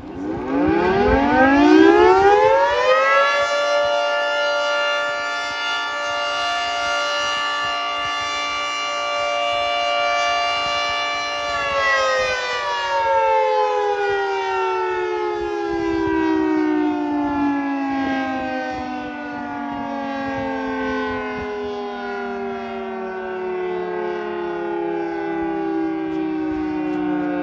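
Outdoor fire siren winding up to full pitch over about three seconds and holding a loud, steady wail. About twelve seconds in, it starts winding down, its pitch falling slowly until the end.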